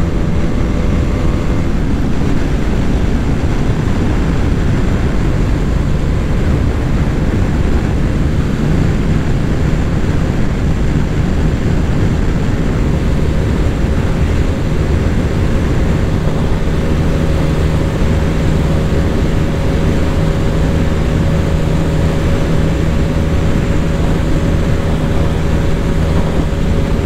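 Bajaj Dominar 400's single-cylinder engine running hard at highway speed, pulling from about 130 to 150 km/h in fourth and then fifth gear, under a steady rush of wind noise.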